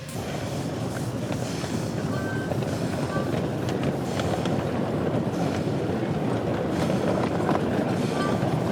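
Miniature live-steam 3-truck Heisler geared locomotive running on 7.5-inch-gauge track, a dense mechanical clatter with scattered clicks that slowly grows louder. A few brief high squeaks come through, about two and three seconds in and again near the end.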